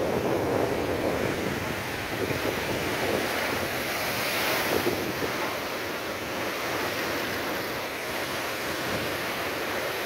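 Heavy Mediterranean surf in storm swell: waves breaking and foaming water washing in, a steady rushing wash that swells a little near the middle, with wind buffeting the microphone.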